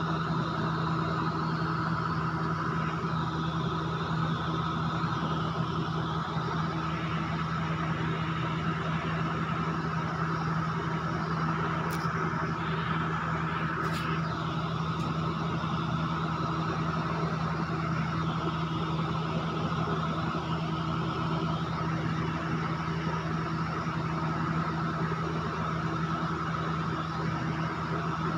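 A steady low hum with a constant hiss that does not change, with two faint clicks about halfway through.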